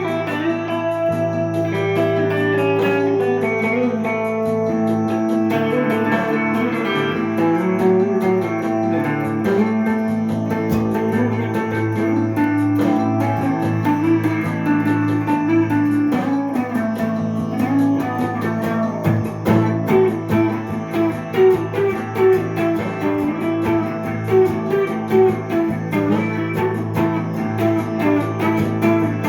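Gibson ES-339 semi-hollow electric guitar playing a jazzy improvisation with an Indian flavour: single-note melodic lines over a steady low drone, the notes picked more sharply and separately in the second half.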